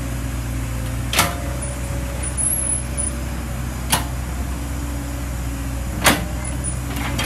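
Old Caterpillar hydraulic excavator's diesel engine running steadily as it digs mud. Three sharp knocks come from the machine's digging gear, about one, four and six seconds in.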